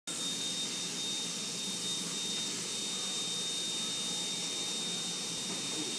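Steady machine hiss with a constant high-pitched whine, unchanging throughout.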